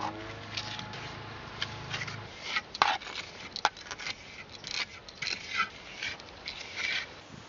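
Square steel trowel scraping and smoothing sandy clay plaster over a cob wall, a string of irregular rasping strokes.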